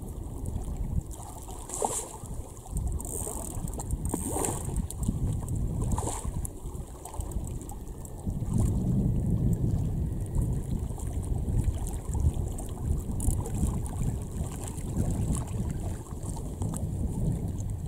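Wind buffeting the microphone in uneven gusts, with a few brief sharp clicks or knocks about two, four and six seconds in.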